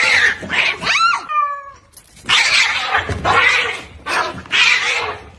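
Cats fighting: screeching and hissing in repeated bursts, with yowls that slide up and down in pitch. One longer, wavering yowl comes about a second and a half in.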